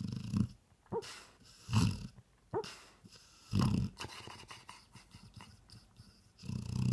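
One-year-old golden retriever snoring: three low, rattling snores about a second and a half apart, each followed by a short, higher-pitched snort. After a pause of a few seconds, another snore starts near the end.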